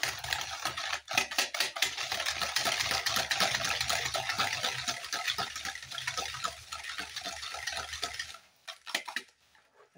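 Wire balloon whisk beating eggs and sugar in a bowl: fast, rattling strokes against the bowl's sides. The whisking stops about eight seconds in, followed by a few short taps.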